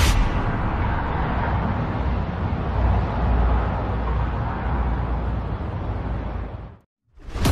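Off-road electric scooter riding: a steady rush of wind and tyre rumble with a strong low end, which cuts off abruptly about seven seconds in.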